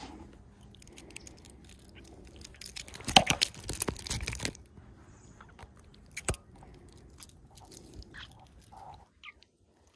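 Close handling noise at the phone's microphone: fabric and fingers rubbing and bumping against it while a small fish is held, giving scattered crackles and scrapes, loudest in a cluster about three to four and a half seconds in, with one sharp click a little after six seconds.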